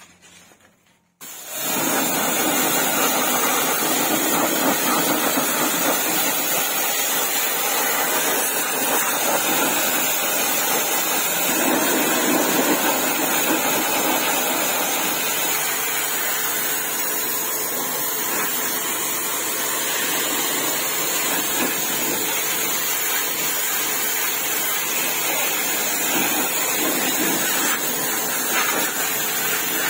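Kortex KTX-R5D electric pressure washer running, its high-pressure jet spraying a car tyre and plastic wheel cover: a loud, steady hiss of water that starts abruptly about a second in.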